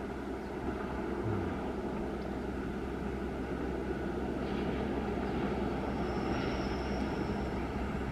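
Diesel-electric locomotive hauling a passenger train on its approach, a low engine drone that grows slowly louder as it nears. A faint thin high squeal sounds over it for a second or two near the end.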